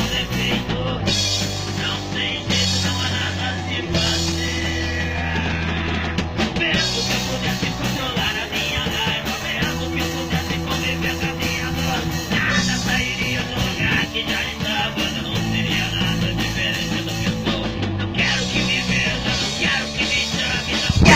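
Rock music with a steady beat and sustained bass notes, played over a boat's sound system during a sound test.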